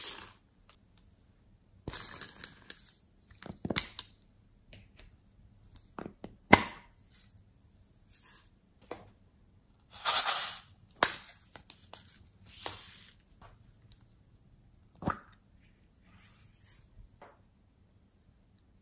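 Hands handling small plastic containers of slime add-ins, with sharp clicks and snaps of lids. Foam beads and glitter are tipped and shaken out into a glass tray in short rustling bursts, the loudest about two seconds in and around ten seconds in.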